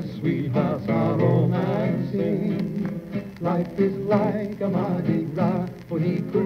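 A 1940 shellac 78 rpm record playing a vocal duet with guitars: two men singing with vibrato over guitar accompaniment.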